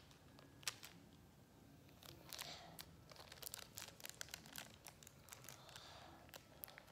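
Faint crinkling and tearing of a blind-bag toy wrapper being opened and handled by hand, with scattered small clicks and crackles that grow busier after the first couple of seconds.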